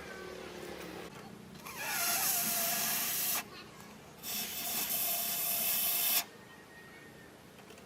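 Two loud hissing bursts, each nearly two seconds long and about a second apart, with a faint whistle under the hiss.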